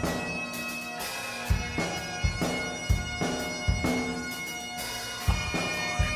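Background music: bagpipes playing held, droning notes over a drum beat with regular heavy kick-drum hits.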